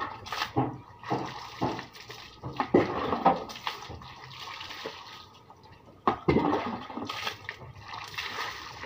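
Water scooped from a bucket with a plastic scoop and poured over a dog, splashing down its coat, in several separate pours of a second or two each.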